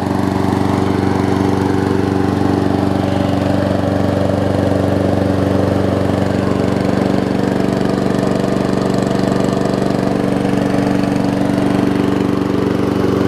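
Briggs & Stratton Quantum single-cylinder engine on a push mower running steadily at a fixed throttle setting, warming up and burning off smoke after sitting unused.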